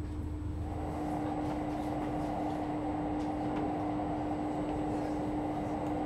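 Echigo Tokimeki Resort sightseeing train heard from inside the passenger car while running: a steady hum over wheel-and-track rumble that grows a little louder about a second in.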